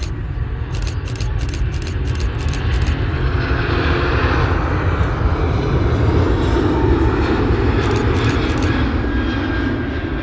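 Airliner jet engine noise: a loud, continuous rumble that swells to a peak about seven seconds in, then begins to ease.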